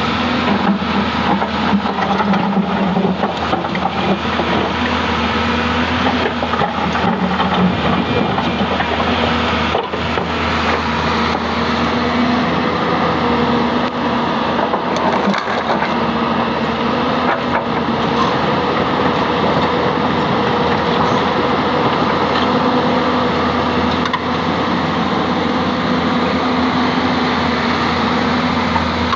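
Hyundai 220-9S crawler excavator's diesel engine running steadily under work, with scattered knocks and clacks of rocks being moved by the bucket.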